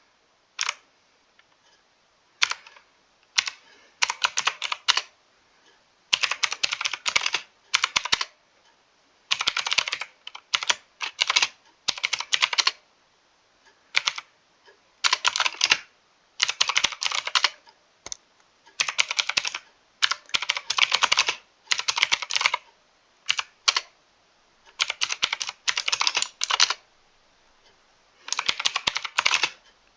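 Mechanical keyboard being typed on: quick runs of keystrokes lasting a second or two, broken by brief pauses.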